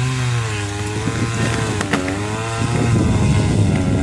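A motor running steadily, its pitch wavering up and down every second or two, with a few sharp clicks over it.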